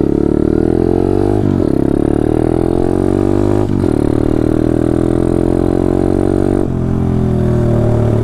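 Taotao DB17 125 pit bike's single-cylinder four-stroke engine running under the rider, with the pitch dropping sharply twice, about two seconds apart, as it shifts up. Near the end it eases off the throttle.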